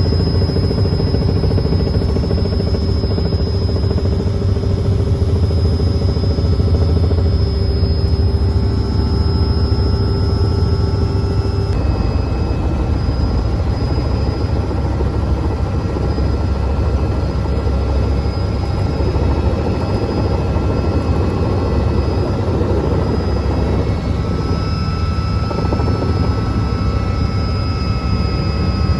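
Helicopter running steadily: a loud, unbroken rotor and engine drone with thin whining tones above it. The tones shift about twelve seconds in.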